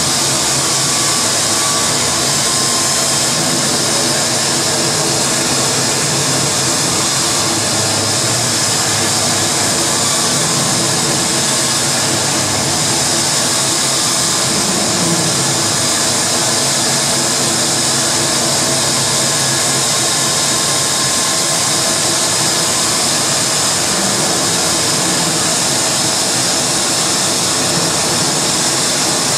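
Live harsh noise music: a loud, unbroken wall of distorted electronic noise, with a voice sung into a handheld microphone and fed through electronic effects.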